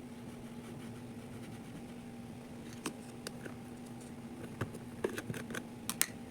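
Hands working kinetic sand: scattered small clicks and taps begin about three seconds in and come thickest near the end. A steady low hum lies under them.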